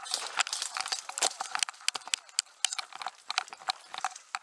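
Footsteps crunching over debris-strewn dirt with the clatter of kit and rifle, an irregular run of sharp clicks and crunches as a player moves into cover.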